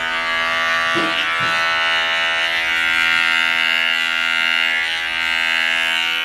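Electric dog grooming clippers running with a steady buzzing hum while cutting through a puppy's matted fur.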